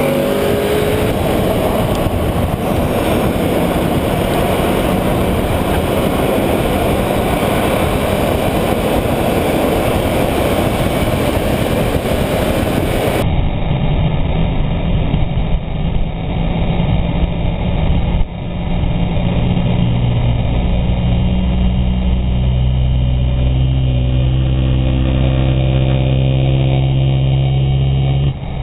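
Car engine running on track, heard through heavy wind and tyre noise at a camera mounted low on the car's body. In the last third the engine settles into a steady drone at even revs. The sound changes abruptly a couple of times where clips are joined.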